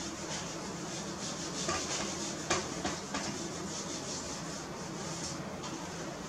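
Handheld eraser wiping marker off a whiteboard: a continuous scrubbing rub of repeated strokes, with a few sharper knocks near the middle.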